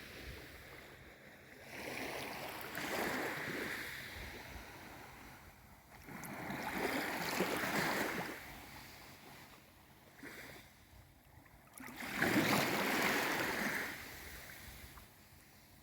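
Small waves of a calm sea, surging in and fading away three times, about five seconds apart, the last one the loudest.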